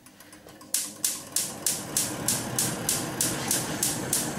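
Gas hob's electric spark igniter clicking rapidly as the burner is being lit, about three sharp clicks a second, with a steady hiss of gas underneath.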